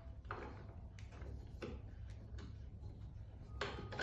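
A few light, scattered clicks and knocks from handling the welding positioner and its parts, over a low steady hum.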